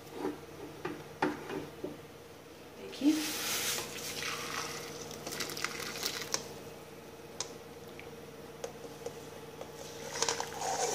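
Hot water and parboiled potato sticks poured from a stainless steel pot into a wire-mesh strainer: a rush of splashing water starting about three seconds in, with scattered clinks of metal on metal, over a steady low hum.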